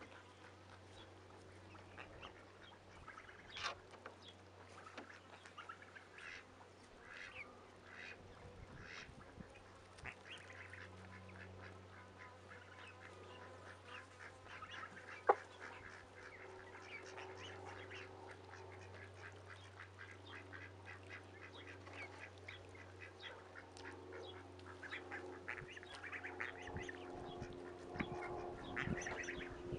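Ducks and geese quacking and honking on and off in short scattered calls, with a steady low hum underneath. A single sharp click comes about halfway through, and lower, longer calls build up near the end.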